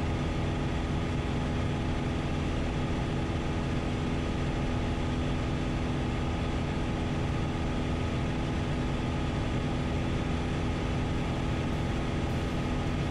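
Piper PA28 light aircraft's piston engine and propeller droning steadily in level cruise, set at about 2400 RPM for a fast cruise.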